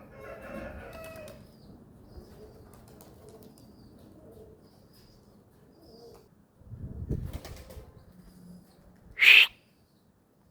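Pigeons' wings flapping, with a louder flurry of wingbeats about seven seconds in, and faint high chirps. A brief, sharp, loud sound just after nine seconds is the loudest moment.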